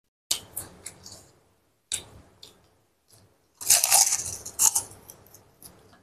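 Person biting and chewing crisp krupuk crackers: a run of sharp crunches in the first two seconds or so, then the loudest burst of crunching a little after three and a half seconds in as a fresh piece is bitten off.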